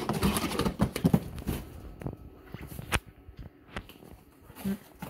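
Cardboard boxes and packaged figures being handled and moved: a busy run of knocks and rustles for about two seconds, then a few separate knocks.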